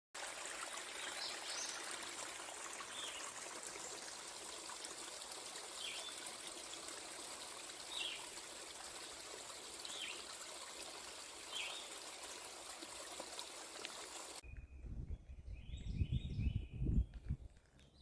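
Creek water flowing steadily, with a bird giving short falling chirps about every two seconds. About fourteen seconds in the water sound cuts off, and a low rumble with birdsong over it follows.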